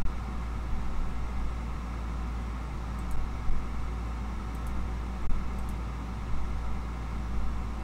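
Steady low hum of room background noise, with a few faint clicks and light knocks.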